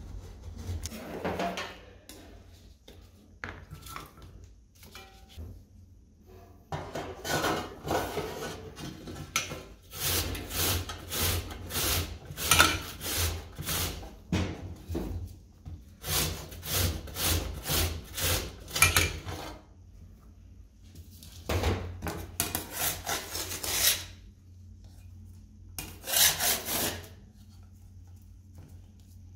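Cucumber grated on a stainless-steel box grater: runs of quick rasping strokes, about two a second, with pauses between the runs. Near the start there is a softer scrape of a metal scraper on the steel cold plate.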